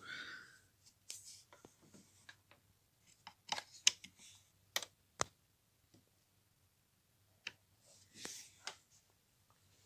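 Small clicks and handling noises as fingers work a small device to set an alarm, with a cluster of sharp clicks in the middle and a brief rustle near the end.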